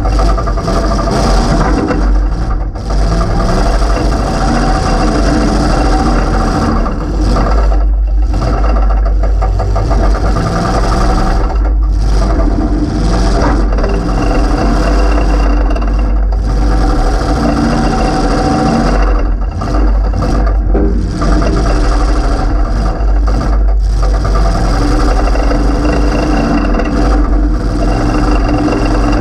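A demolition derby car's 355 V8 running through open headers that poke straight up through the hood, loud and close, revving up and dropping back over and over as the car drives.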